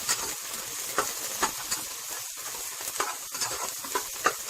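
Chopped onion with green onion and green chilli sizzling in hot oil in a pan while being stirred, with a steady hiss and short scrapes of the stirring utensil at irregular moments.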